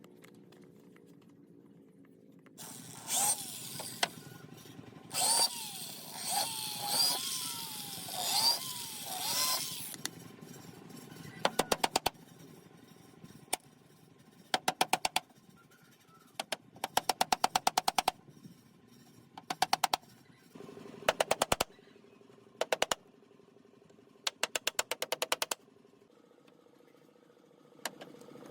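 Woodworking tools on palm wood. First comes a stretch of noisy tool work whose pitch rises and falls again and again. Then come short bursts of rapid, sharp strikes, several in quick succession each time.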